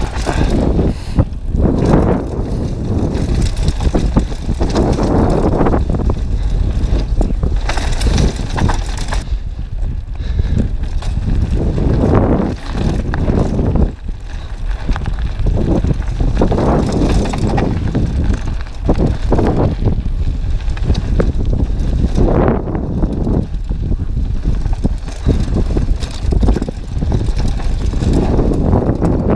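Downhill mountain bike descending a dirt and gravel trail: tyres rolling and crunching over the ground, the bike rattling and knocking unevenly over bumps, with wind rushing over the camera microphone.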